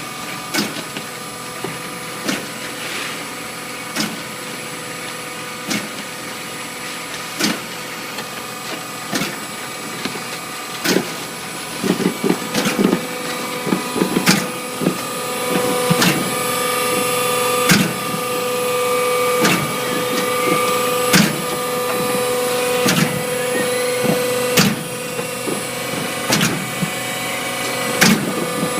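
Foam concrete machine running: a steady mechanical hum with a few held tones, and sharp clicks every second or two that come faster in the second half.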